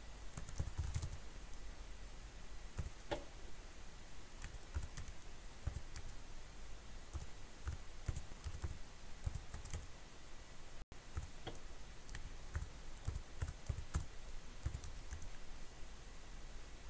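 Computer keyboard typing: irregular key clicks with short pauses between them as a line of text is typed.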